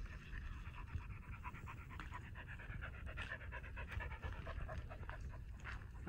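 A dog panting in quick, steady breaths.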